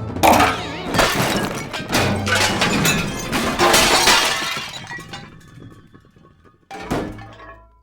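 Breakable ornaments shattering in a run of crashes over the first few seconds, then one more smash near the end, with background music.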